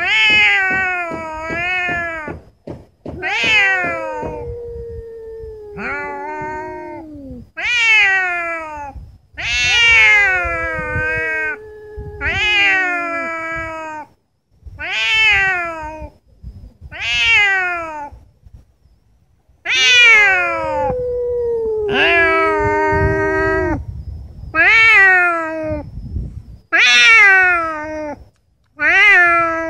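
Domestic cats yowling at each other in a fight standoff: about a dozen drawn-out, wavering calls, one to three seconds each, sometimes overlapping.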